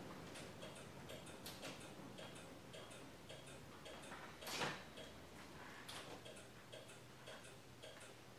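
Faint, steady ticking of a 1992 Ford F-150's turn-signal flasher while the new taillights blink, with one louder knock about halfway through.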